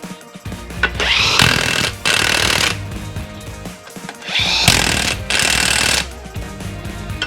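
Impact wrench running in repeated short bursts of about a second each, its pitch rising as each burst starts, as bolts are run in and tightened on the axle.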